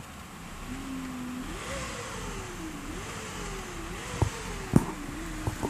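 Mazda6 engine revved in repeated throttle blips, a single whining tone climbing quickly with each blip and sinking slowly as the revs drop; this whine is the weird sound the owner is asking about. Three sharp clicks land in the second half, the middle one the loudest.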